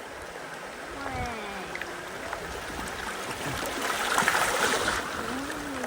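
River water flowing and trickling around a bamboo raft, with a louder burst of water noise about four seconds in.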